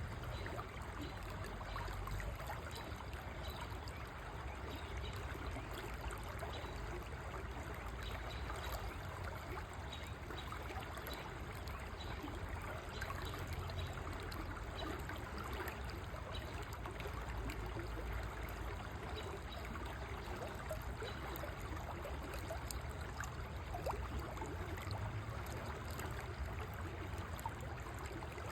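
River water flowing steadily over its bed, an even rushing and trickling with no let-up.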